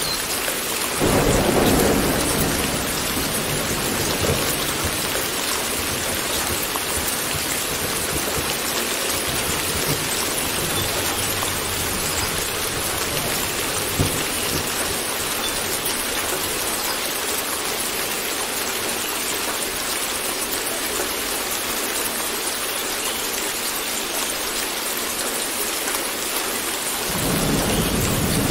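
Steady rain falling, with a roll of thunder about a second in and another rumble building near the end.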